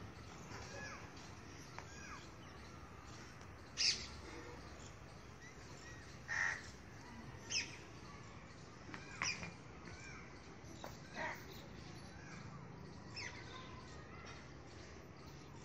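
Crows cawing: about seven short caws at irregular gaps of one to two seconds, with faint chirps of small birds in the background.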